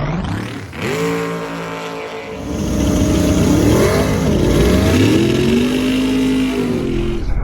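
Drag racing car's engine revving hard under acceleration, its pitch climbing in the first second, holding, then rising and falling several times.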